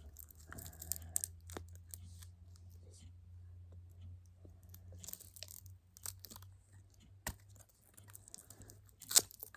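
Plastic packaging being pried and torn open by hand, with scattered crackles, crinkles and clicks, and a sharp snap near the end as a piece of plastic breaks off.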